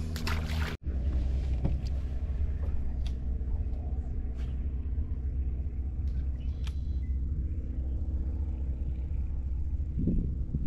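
A boat motor running steadily: a low rumble with a constant hum, with a few faint clicks over it.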